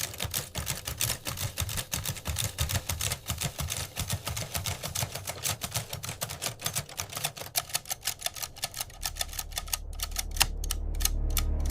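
Mechanical typewriter keys clacking rapidly, several strikes a second. A low rumble comes in underneath from about nine seconds in and grows louder.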